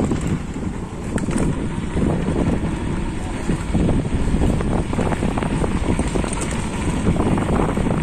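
Wind buffeting the microphone on a moving motorcycle, a loud low rumble, with the motorbike's engine running underneath.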